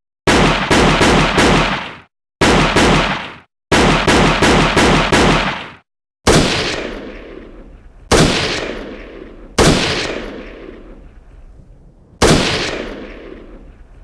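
Gunshot sound effects: three short bursts of rapid automatic fire at about four to five shots a second, each cut off abruptly, then four single shots, each followed by a long echoing tail that fades out.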